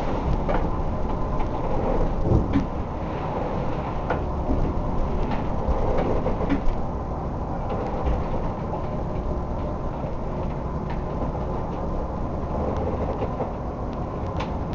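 Steady low rumble on board a crab boat in a storm, with a faint steady hum running under it and scattered knocks and rattles.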